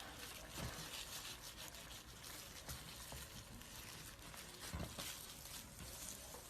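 Faint crackling and rustling of a snake's skin peeling away as it sheds, a dense run of tiny clicks, with a soft low thump about half a second in and another near five seconds.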